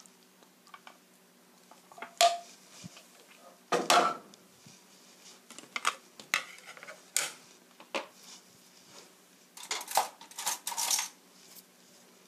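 Cookware clatter: a frying pan and wooden spatula knocking and scraping, and dishes clinking on the table, as a series of separate knocks and clinks, the loudest about two and four seconds in and a quick cluster near the end.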